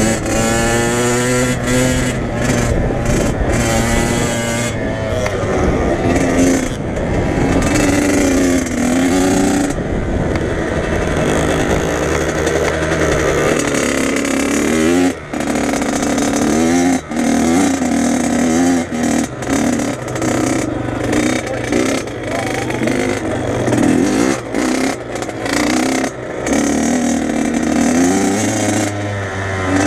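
Dirt bike engine heard up close while riding a motocross track, its pitch climbing and falling again and again as the rider works the throttle and gears, with short drops in sound when the throttle is cut, about fifteen and seventeen seconds in. Wind hiss runs underneath.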